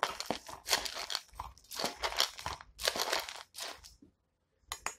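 Dry dog kibble rattling and crunching in a run of rough strokes as it is poured and mixed into a food bowl, pausing briefly near the end.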